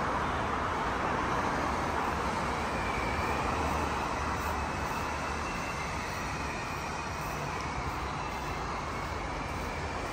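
Steady, even vehicle noise: a low rumble of cars and traffic around a parking area, with no single event standing out.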